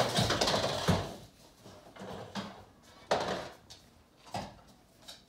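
A wirehaired pointing dog's claws clicking and scuffing on a hard wooden floor as it moves across the room, busiest in the first second, then a few separate clicks and knocks.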